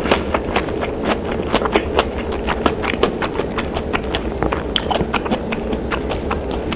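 A person chewing a fried gimmari (seaweed roll filled with glass noodles) dipped in tteokbokki sauce: a loud, fast, unbroken run of clicks and smacks from the mouth.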